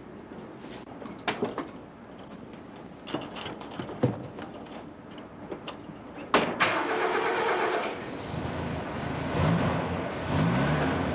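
Knocks and clatter of doors and gear as a crew climbs into a military off-road vehicle's cab, then about six seconds in the vehicle's engine starts and runs.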